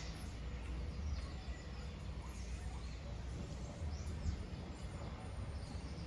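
Wind blowing, rumbling on the microphone, with faint scattered bird chirps over it.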